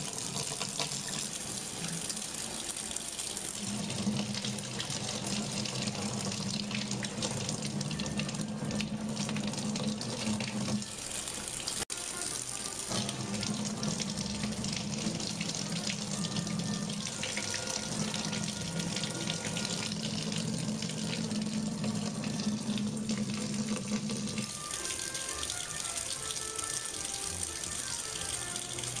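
Sink faucet running in a steady stream, the water splashing over a cat's head and fur. A low hum sits under it for most of the time.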